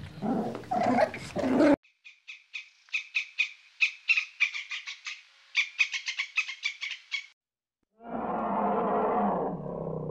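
Three different animal calls, one after another: a rough, noisy call that cuts off abruptly, a rapid run of short high chirps, then a low drawn-out call.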